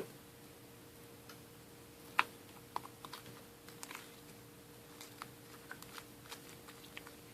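Faint, scattered small clicks and sticky pops of homemade glue-and-clay slime being handled and stretched in the hands, with one sharper click about two seconds in.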